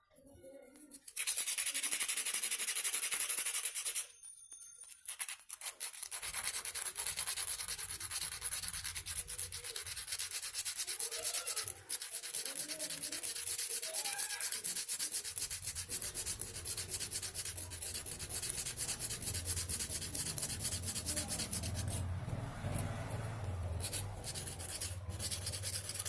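Sandpaper rubbed by hand over the rusty steel housing of a bike horn to scour off the rust. It is a continuous rapid scratching, with a short break about four seconds in.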